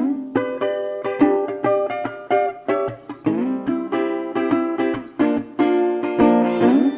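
Background music: a quick, bright plucked-string melody, ukulele-like, starting abruptly as a new section begins.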